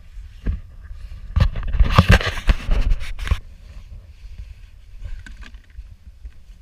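Handling noise from a small action camera being turned around and held close: a cluster of loud scrapes and knocks in the first half, then a quieter low rumble with faint ticks.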